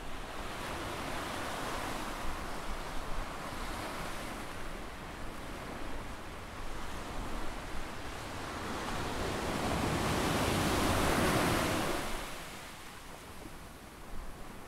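Ocean surf washing onto a sandy beach: a steady rush of waves, with a larger wave swelling and breaking about ten seconds in, then fading back.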